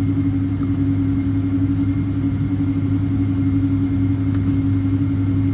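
Steady cabin hum of a Boeing 777-200 taxiing slowly with its engines at idle, heard from a window seat over the wing: a low drone with a constant deep hum and a steady higher hum above it.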